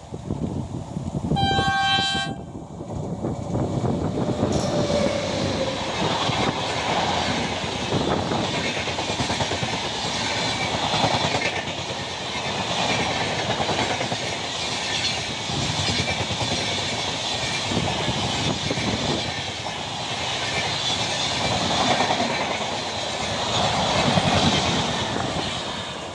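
Indian Railways express train sounding a short horn blast, then passing close by with a continuous rumble and clattering wheels over the rail joints.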